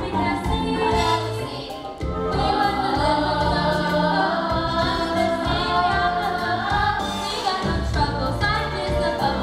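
A stage musical's cast singing a group number together over instrumental accompaniment, with held, swelling sung notes.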